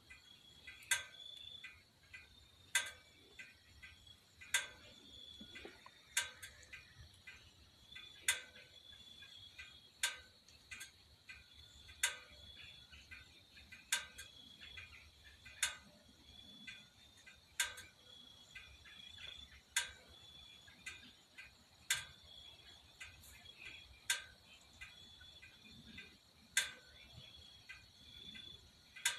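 Faint sharp ticks repeating evenly about every two seconds, with fainter clicks between them, over a faint steady high-pitched tone.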